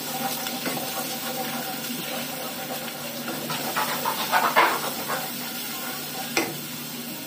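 Wooden spoon stirring and scraping a thick tomato-and-onion sauce in a pot over the heat, with a steady sizzle underneath. A few louder scraping strokes come in the middle, and a single sharp tap near the end.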